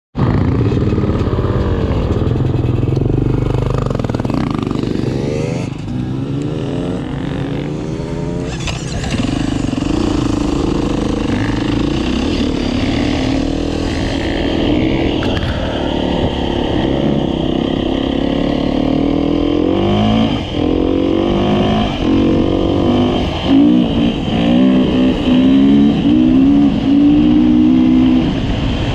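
An engine running, its pitch rising and falling over and over as it revs.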